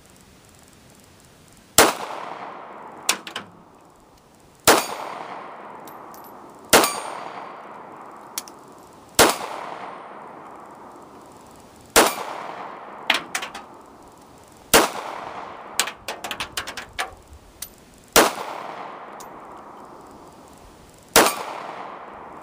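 Kel-Tec P3AT .380 pocket pistol fired eight times at an unhurried pace, the shots about two to three seconds apart, each sharp crack followed by a long fading echo. Fainter sharp clinks and taps come between some of the shots.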